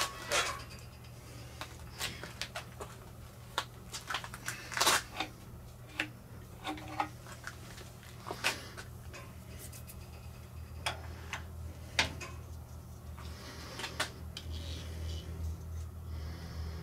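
Scattered light metallic clicks and knocks, a dozen or more, as a dial indicator is mounted and set against a workpiece held in a lathe's four-jaw chuck, over a steady low hum that grows a little louder near the end.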